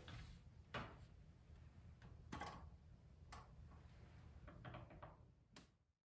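Cat making short, faint chirps and chattering clicks, about five of them spread over a few seconds, the excited chatter of a cat watching prey it cannot reach.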